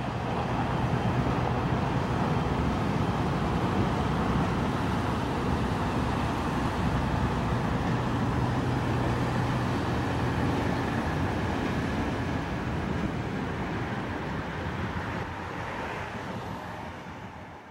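Street traffic noise with a car driving past, while a short train of wagons and a locomotive moves along the track behind the fence. A steady low engine hum runs through the first ten seconds or so, and the sound fades out near the end.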